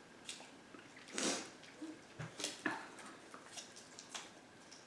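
Faint handling of wrapped snacks: a brief rustle about a second in and a few light clicks and taps.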